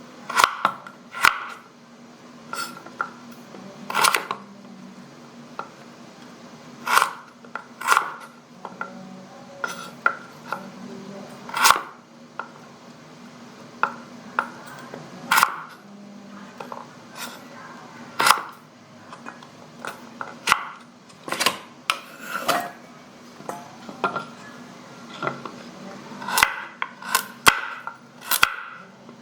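Carrot being peeled and sliced by hand: sharp knocks and clicks of the blade through the carrot onto a cutting board, irregular, about one or two a second, with softer scraping between.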